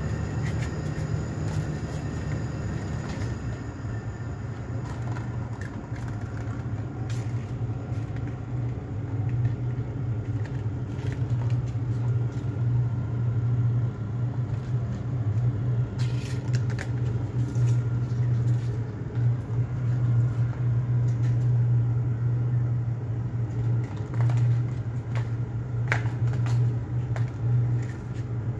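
A steady low rumble throughout, with a few scattered light clicks and taps.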